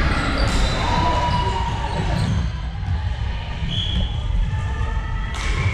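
Indoor volleyball play echoing in a large hall: the ball is struck sharply about half a second in and again near the end. Players' shoes move on the wooden court and short calls ring out between the hits.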